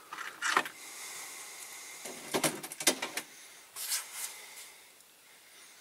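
Light clicks, taps and rustles of hands handling a small die-cast toy car and a sticker being fitted to its back window, in three short clusters.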